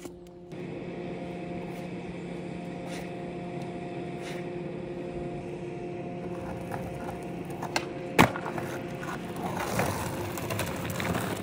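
Skateboard wheels rolling over rough concrete, with one sharp clack of the board about eight seconds in. The roll turns rougher and grittier near the end on crusty ground.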